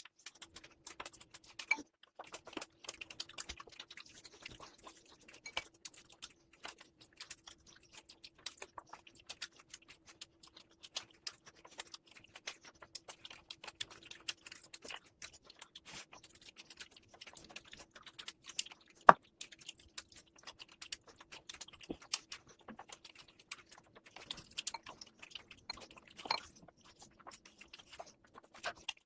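Close-miked chewing and mouth sounds of a person eating mutton fat curry with rice: a dense run of small wet clicks and smacks, with one sharper click about two-thirds of the way through. A faint steady hum runs underneath.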